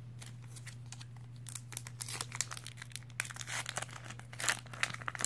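Plastic trading-card pack wrapper crinkling and tearing as it is handled. The crackles are sparse at first and grow busier after about a second and a half.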